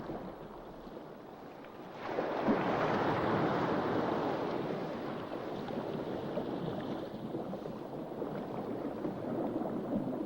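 Steady rushing wash of water, swelling up about two seconds in and then slowly easing.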